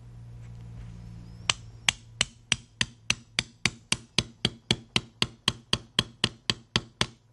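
A hammer tapping a large roll pin into a SIG pistol's slide to retain the breech block. There are about twenty quick, even taps, roughly four a second, beginning about a second and a half in.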